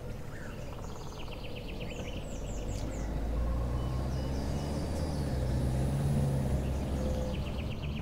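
Tata SUV driving along a paved road: a steady rumble of engine and tyres that grows louder around the middle. Birds chirp in quick trills in the first couple of seconds and again near the end.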